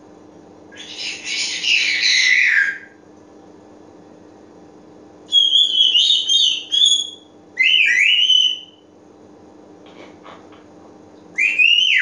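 African grey parrot whistling and calling in short bursts. A harsh call falls in pitch about a second in, a run of whistles comes in the middle, then a rising whistle, and a whistle that rises and falls near the end. Faint clicks come between the last two.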